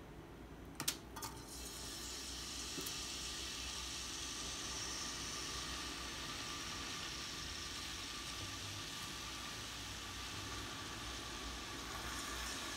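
Chopped onions going into hot oil in a stainless steel pan: two sharp clicks about a second in, then a steady sizzle of frying.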